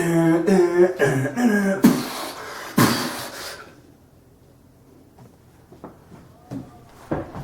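A person's voice making loud wordless sounds that waver in pitch for about two seconds, followed by two short harsh noisy bursts about a second apart. Much quieter after about four seconds.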